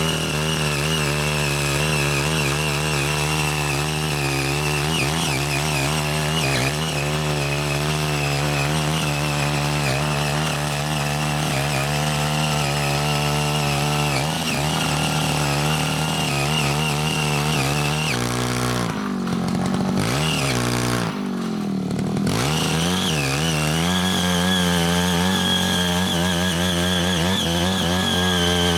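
The 5 HP engine of a CY80 walk-behind mini rotary tiller runs steadily under load while its six rotary blades till the soil. About two-thirds of the way through, the engine slows and drops in pitch twice for a second or two, then picks back up.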